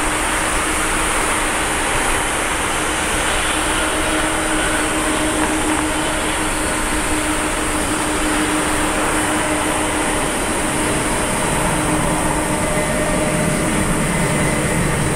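Jet engines of a Boeing 777-200ER at takeoff thrust, Rolls-Royce Trent 892 turbofans, as the airliner lifts off and climbs away: a steady, loud rushing noise with a faint steady hum beneath it.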